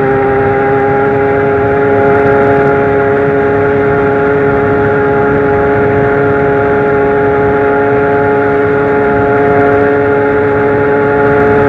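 Zanella 70cc two-stroke moped engine running at high revs under steady throttle, a loud, steady high-pitched drone that holds its pitch with only slight drift.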